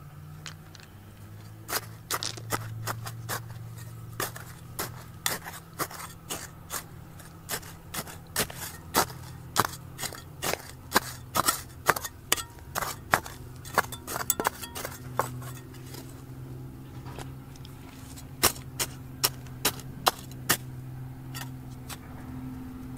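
Irregular sharp clinks of a metal digging tool striking hard stone, coming in quick runs with a short pause near the end, over a low steady hum.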